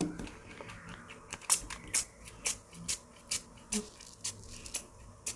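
Fine-mist pump spray bottle being pumped over and over, each stroke a short hissing spritz of isopropyl alcohol, about two a second.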